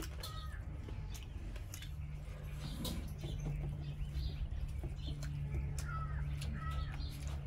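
Close-miked eating sounds, many short wet clicks of chewing and mouth smacks, over a low steady hum. A chicken clucks a couple of times in the background near the end.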